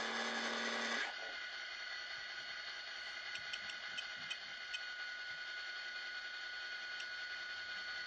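Small N scale model diesel locomotive running slowly, its motor giving a steady high whine, with a few faint ticks between about three and five seconds in. A louder whirring noise cuts off about a second in.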